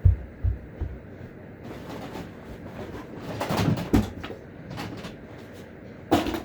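Handling noise from plastic Nerf blasters being picked up and set down: a few dull thumps near the start, then louder plastic clatters just before the four-second mark and again near the end.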